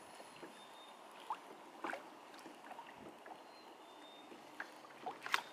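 Faint water lapping against a kayak hull, with a few soft clicks and taps under a low steady hiss, a little louder near the end.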